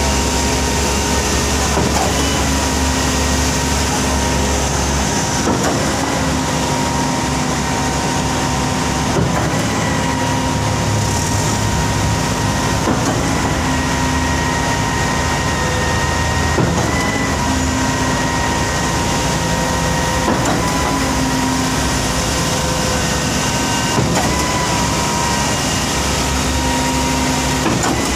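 Heavy diesel machinery running steadily, with a whine that fades in and out and a faint knock about every three and a half seconds.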